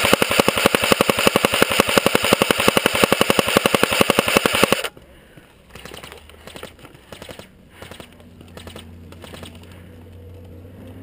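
Airsoft rifle firing a long full-auto burst, a fast even rattle of shots that cuts off suddenly about five seconds in. After that come faint scattered clicks and a low steady hum.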